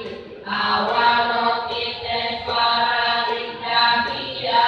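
Congregation chanting a Buddhist sutra in unison: long held notes on a steady pitch, sung in phrases with brief breaks between them.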